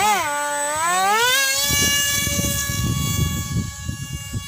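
Brushless electric motor and propeller of a hand-made styrofoam RC jet model running up to full throttle: a whine that rises, dips and climbs again in the first second and a half, then holds a steady high pitch as the plane flies.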